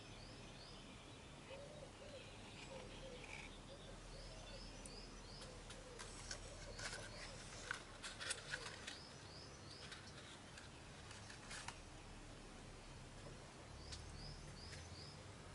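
A small bird singing faintly, a short phrase of four or five quick high notes repeated a few times. Around the middle come a cluster of sharp clicks and rustles as leaves and pitchers are handled.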